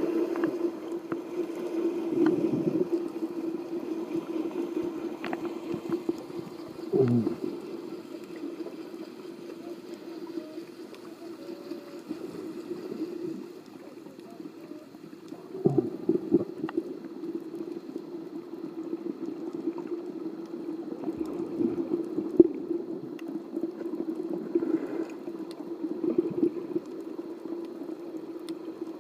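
Underwater sound: a steady low drone with water gurgling and bubbling, and louder gurgles now and then, one about seven seconds in sliding down in pitch.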